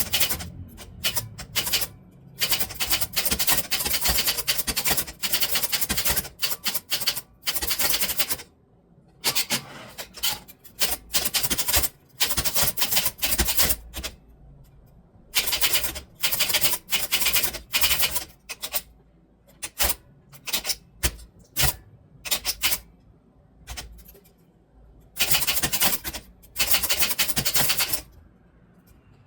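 Typewriter being typed on: fast runs of key strikes in bursts of a second or two, with short pauses between them.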